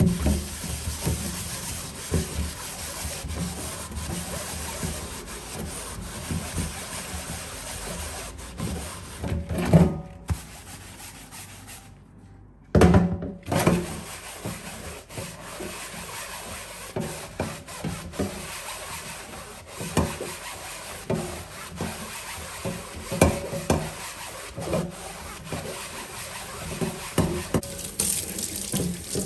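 Continuous scrubbing against a hard surface, broken by light knocks and clatter, with a brief gap about twelve seconds in.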